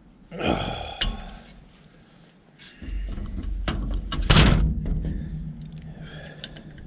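Metal clunks and knocks of hand tools and vise grips working on a truck starter's mounting bolts, with a scrape about half a second in and the loudest knock about four seconds in. A low steady hum comes in about three seconds in.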